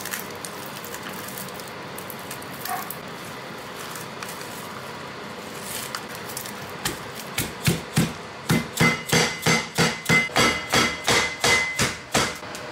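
Grilled dried squid being pounded on a cutting board to soften it: a few scattered blows about seven seconds in, then a steady run of about three blows a second until near the end.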